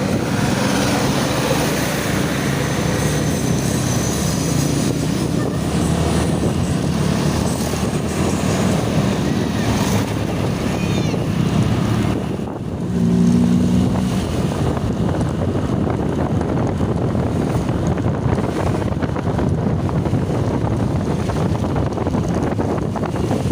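Roadside traffic: the engines of passing buses and trucks, with wind buffeting the microphone. A short, low horn blast sounds about halfway through.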